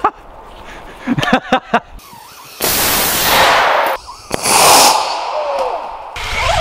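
Homemade rocket motor on an RC car firing with a loud rushing hiss, heard twice, each burst about a second long and cutting off abruptly, after a few sharp pops. Near the end a small motor starts up with a wavering whine.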